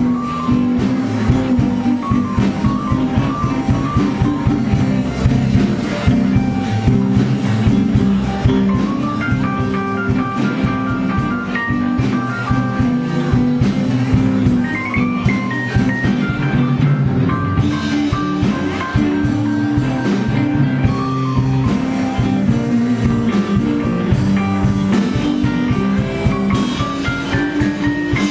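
Live blues band playing an instrumental passage with no singing: electric guitars, bass, keyboard and drum kit, with a lead line of short notes and bends above the rhythm.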